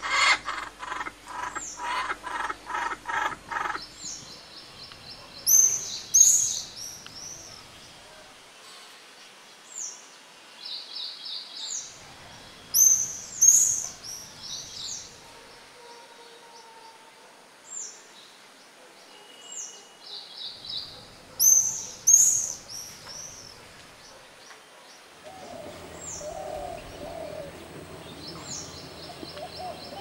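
Laughing kookaburra calls in a fast, rhythmic run that ends about four seconds in. Then a small songbird repeats the same phrase of high chirps, short down-sweeping whistles and a quick trill roughly every eight seconds. A lower chattering joins near the end.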